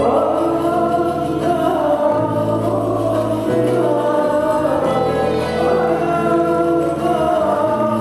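A male voice singing over an accompaniment of oud and bowed strings, with long held notes.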